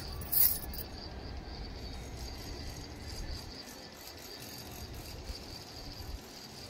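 Insects chirping in a steady, high, pulsing drone, with one brief sharp rattle about half a second in over a low rumble.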